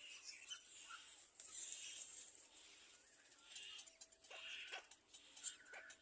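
Faint, high-pitched squeaky cheeps and hissy chirps from baby birds in a nest, repeated in short bursts, with a few soft clicks near the end.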